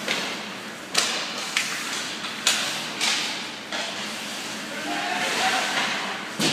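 Ice hockey play: skate blades scraping and carving the ice in a steady hiss, with several sharp clacks of sticks and puck, about five in all.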